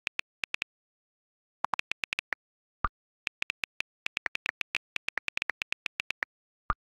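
iPhone on-screen keyboard key clicks while typing, in quick runs of taps broken by short pauses. A few deeper, louder clicks stand out, one near the middle and one near the end.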